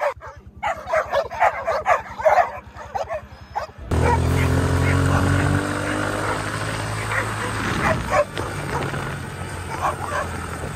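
A pack of excited dogs barking and yipping rapidly over a low steady throb. About four seconds in this cuts off abruptly and background music takes over, with a few barks still heard over it.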